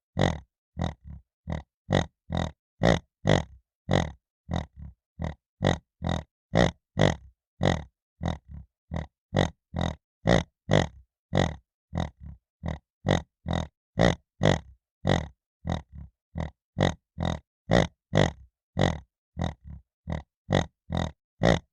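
Piglet grunting in short, evenly spaced grunts, about two a second.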